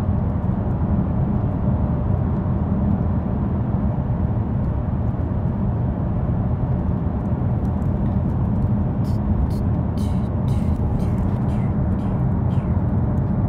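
Steady low rumble of road and engine noise inside a moving car's cabin, with a few faint clicks near the end.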